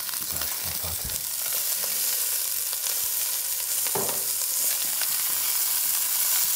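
Cubes of wild boar meat searing in hot fat in a stainless steel pot, a steady sizzle, with a few light clicks of metal tongs against the pot as the pieces are turned, the clearest about four seconds in.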